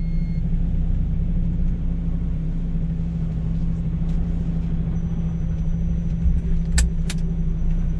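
Articulated truck's diesel engine running steadily while the truck drives slowly, heard inside the cab as a constant low hum and drone. Two short clicks sound about seven seconds in.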